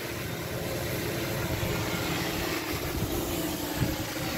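Multirotor drone's motors and propellers humming steadily as it holds position in loiter mode against strong wind, with wind buffeting the microphone in a low, uneven rumble.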